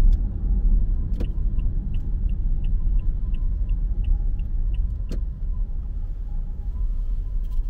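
Steady low road and engine rumble inside a moving car's cabin. About a second in, a sharp click is followed by a turn-signal indicator ticking about three times a second for several seconds, and another sharp click comes after the ticking stops.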